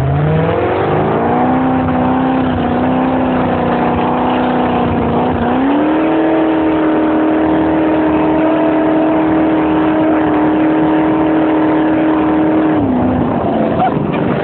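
Jet boat engine running hard: a steady high drone that climbs in pitch over the first second or so, steps up again about five seconds in, and drops back near the end, over a steady rushing noise.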